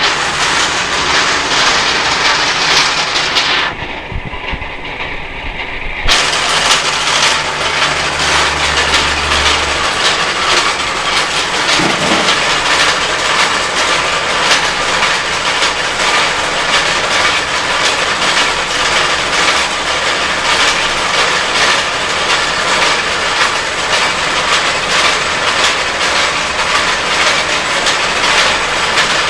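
Rotary sand dryer running at about 30 RPM: the turning drum with sand tumbling and rattling inside, a dense continuous clatter. The sound changes abruptly about four seconds in and again at about six seconds, then runs louder and steady.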